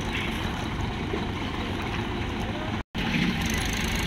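Swaraj tractor's diesel engine running under load as it tries to pull a sand-laden trolley stuck in river water, with a brief dropout about three seconds in.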